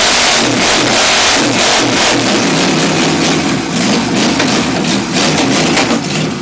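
Chevy 327 small-block V8 with worn racing heads and a lumpy cam running loud, its speed rising and falling as the throttle is worked, easing off about six seconds in.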